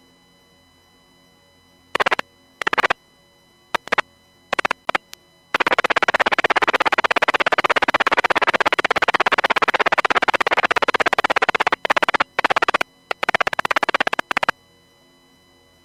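Marine VHF radio feed putting out bursts of static with no voice. Several short keyed hisses come first, then a long stretch of static from about five seconds in that lasts about six seconds, then more short bursts before the channel goes quiet. A faint steady hum sits underneath.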